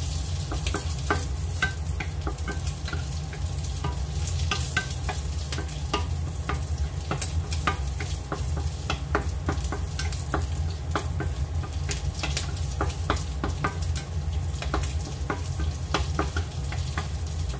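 Hot dog slices and garlic sizzling in oil in a nonstick frying pan, stirred with a wooden spatula that scrapes and taps against the pan many times. A steady low hum runs underneath.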